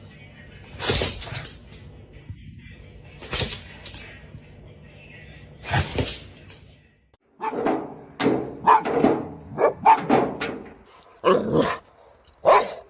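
A dog barking: three single barks a couple of seconds apart, then after a brief break a rapid run of barks.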